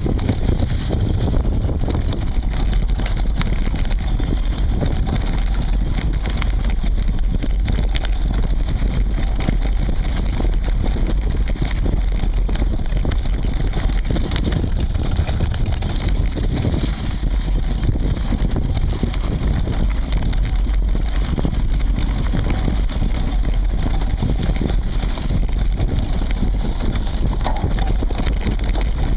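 Mountain bike riding over a rough woodland dirt trail, picked up by a camera mounted on the bike's seatpost: a steady low rumble from the tyres and wind with constant rattling and knocking as the bike jolts over the ground.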